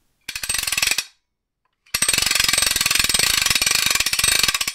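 Rapid mechanical clicking in a logo transition sound effect: a short burst of under a second, a pause, then a longer run of nearly three seconds that cuts off suddenly.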